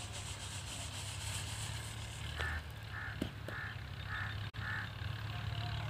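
A bird calls five times in quick succession, about two calls a second, over a steady low outdoor rumble.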